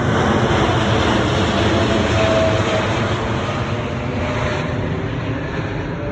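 Jet airliner's engines on takeoff, a loud, steady roar that slowly fades as the aircraft climbs away.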